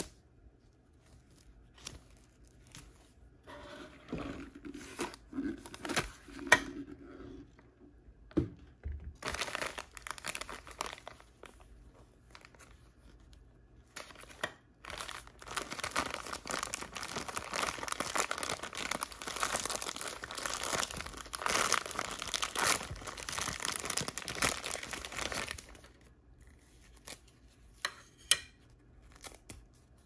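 Plastic toy packaging crinkled and torn open by hand, in spells: a short one from about four to seven seconds with a sharp snap near the end, another around ten seconds, and a long steady stretch from about fourteen to twenty-six seconds.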